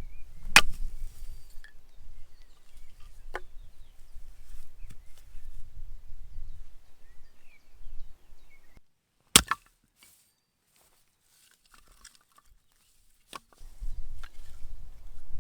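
Wind buffeting the microphone in uneven gusts, dropping away for a few seconds past the middle before picking up again. A few sharp knocks or clicks cut through it, the loudest about half a second in.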